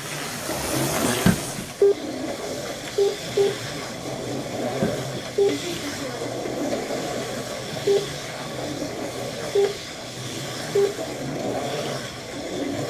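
Auto World Thunderjet 500 HO slot cars racing on a four-lane plastic track: a steady whir of small electric motors and wheels on the track. Short electronic beeps sound irregularly every second or two, from the lap counter as cars cross the line.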